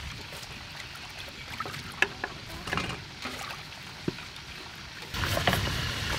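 Hands washing lettuce in a steel bowl of water: sloshing and trickling, with a few sharp clicks. Near the end a louder stretch begins with a knife chopping limes on a wooden board.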